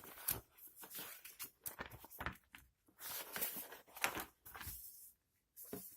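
Paper rustling in irregular bursts as an instruction booklet is handled and its pages are turned.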